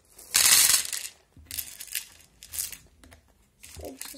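Small plastic beads poured into a clear plastic organiser compartment, a loud rattling spill about half a second in, followed by three or four shorter rattles as more beads drop in.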